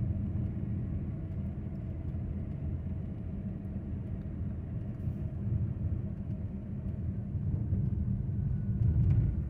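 A car driving, heard from inside the cabin: a steady low rumble of engine and tyres on the road, swelling louder near the end.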